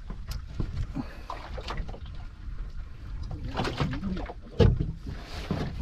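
Water splashing and sloshing against the side of a fishing boat as a hooked fish is brought up to be gaffed, with one loud knock against the hull about four and a half seconds in.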